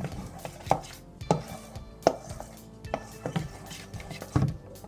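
A utensil stirring glue and gold paint in a container for slime, knocking and scraping against its sides in irregular clacks about every half second.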